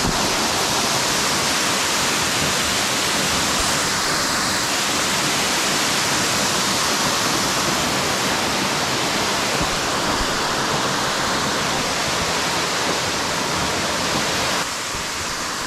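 Waterfall, the falling water making a steady, dense rush, a little quieter near the end.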